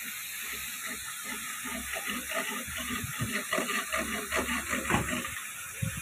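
Fountain's tall vertical water jet running: a steady hiss of spray and water falling back into the basin.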